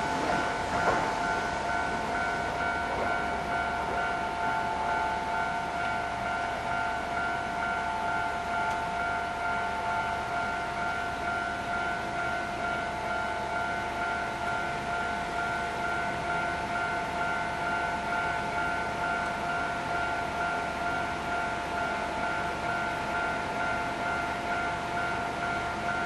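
Japanese level-crossing electronic warning bell ringing steadily, its two tones repeating without a break. It signals that the crossing is still closed for another approaching train.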